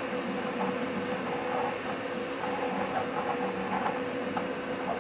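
Qidi X-Smart 3 3D printer running a print: a steady whir of its cooling fans, with a stepper-motor whine that comes and goes in short stretches as the print head moves.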